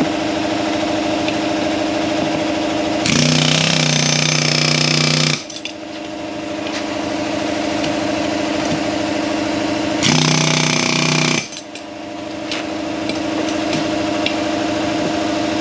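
Pneumatic air hammer firing in two bursts of about two seconds and one second, driving the bearing race out of a 4x4 wheel hub, over a steady machine hum.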